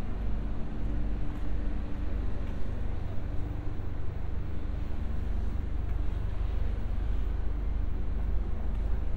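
Steady low rumble of city traffic, an even hum without distinct events.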